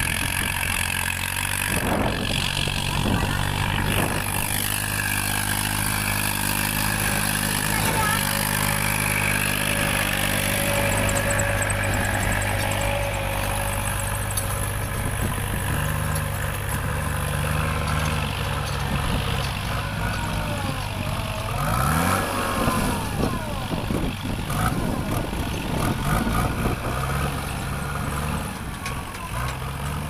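JCB 3DX backhoe loader's diesel engine running under load as the machine pushes soil with its front bucket. The engine note shifts up and down a few times as it works.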